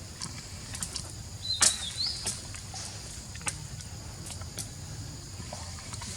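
Steady high chirring of insects, with scattered light clicks and snaps and one short high squeak about one and a half seconds in.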